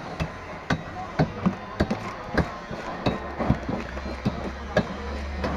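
A metal blade scraping and knocking the scales off a large golden fish in quick, uneven strokes, two or three a second, over market chatter. A low hum comes in about three seconds in.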